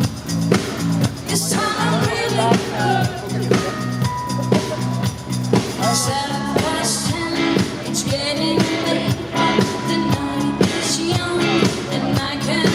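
Live rock band playing with a woman singing: steady bass line, drum kit beating about two hits a second, and guitars.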